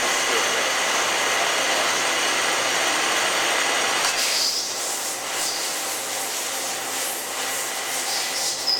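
Citizen Type E32 Swiss-type CNC turning center running under power, a steady mechanical noise that eases about four seconds in, leaving fainter high-pitched tones.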